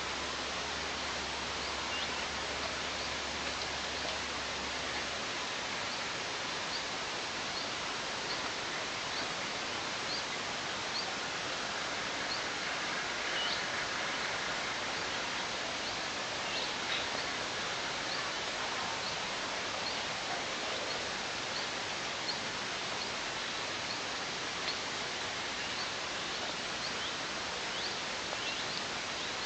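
Steady hiss of wind in a pine forest, with short faint high chirps scattered through it, from small birds.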